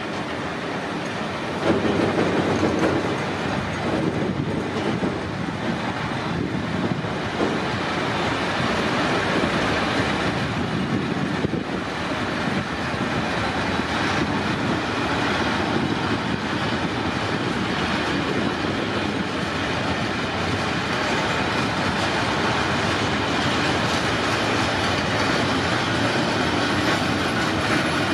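Train passing through the station without stopping: a steady, loud rumble of wheels on rail that grows louder about two seconds in and holds.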